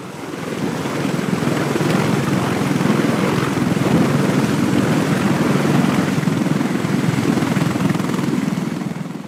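Heavy-lift CH-53-series helicopter's rotor and turbine noise, steady and heavy in the low range, as it flies in close. It fades up over the first second or so and starts to fall away near the end.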